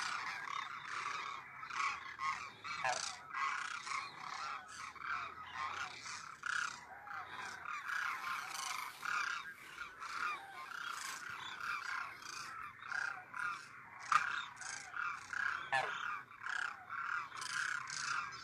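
A flock of demoiselle cranes calling together: many overlapping calls in a dense, continuous chorus. A single sharp tap stands out about three-quarters of the way through.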